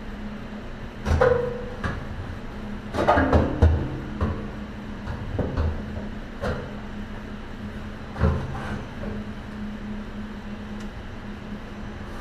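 A new sheet-metal fuel tank being lowered into the trunk-floor opening of a classic Ford Mustang, knocking and scraping against the body as it is shifted into place. There are several irregular clunks, the loudest about a second in and around three seconds in, over a steady low hum.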